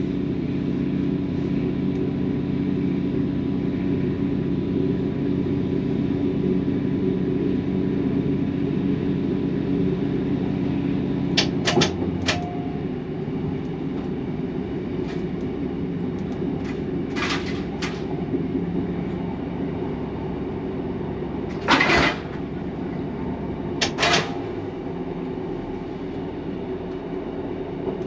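Class 150 diesel multiple unit heard from the driver's cab: its underfloor Cummins diesel engines running steadily with the rumble of wheels on track. The engine hum eases about twelve seconds in. A few sharp clicks and knocks come in small groups, the loudest about twenty-two seconds in.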